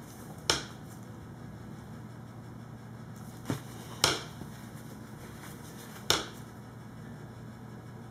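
Sharp clacks from a wooden wire soap cutter as its arm is pulled down through a cold process soap log onto the board: one about half a second in, a soft tap then a louder clack around four seconds in, and another about six seconds in. A low steady hum runs underneath.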